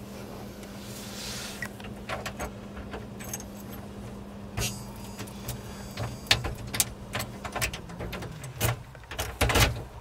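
A key and new ignition lock cylinder being worked into the dash: irregular metallic clicks and key jangling, coming faster and louder in the last couple of seconds.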